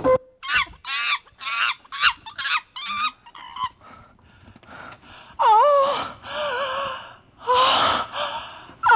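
A performer's voice making quick, high-pitched wavering chirps and chattering calls, one after another. About halfway through come two longer wavering vocal cries.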